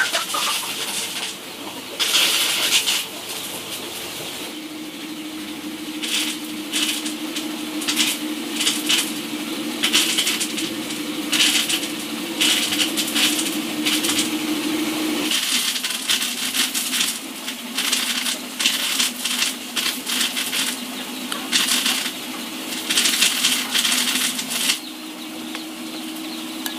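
Food preparation: a steel cleaver chopping green onions on a wooden board in quick irregular strokes, then a spoon tapping and scraping ceramic bowls as topping goes onto rice noodles, over a low steady hum.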